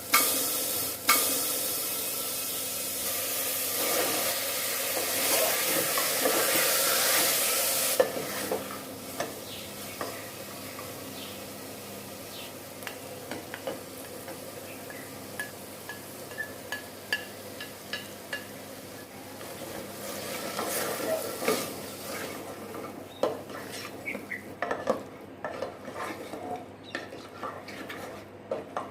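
Food frying in hot oil in a cooking pot while it is stirred. A loud, steady sizzle runs for about the first eight seconds, then drops to a softer sizzle with repeated scrapes and taps of the stirring spoon against the pot.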